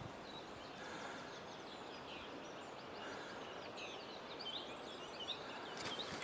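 Mountain stream rushing steadily, with small songbirds chirping over it, a quick run of chirps in the second half. Footsteps on the path start again just before the end.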